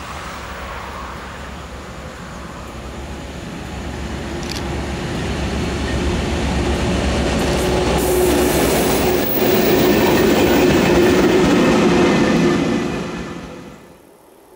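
Lollandsbanen diesel locomotive M36 approaching and passing close with a train of ballast hopper wagons: the engine grows steadily louder to a peak as the locomotive goes by, with the wagons rumbling past on the rails. The sound drops away suddenly near the end.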